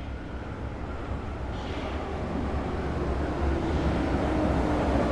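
U-Bahn subway train approaching: a low rumble that grows steadily louder, with a low whine coming in about three seconds in.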